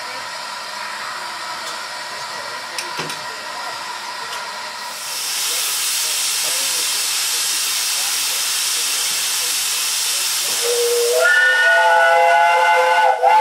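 Double Fairlie steam locomotive under steam on its boiler steam test. A steady hiss of steam grows much louder about five seconds in as steam blows off from the top of the boiler. Near the end the steam whistle sounds, its pitch rising briefly and then holding steady.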